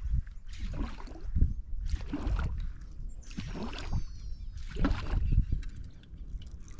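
Water splashing and sloshing in a series of irregular strokes, roughly one every second.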